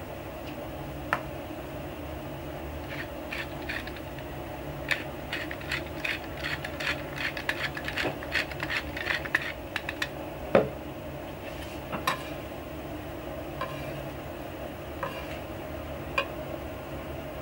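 Hand pepper grinder being turned over the meat, a rapid run of small crackling ticks for several seconds. Then one sharp knock and a few scattered light taps, over a steady low hum.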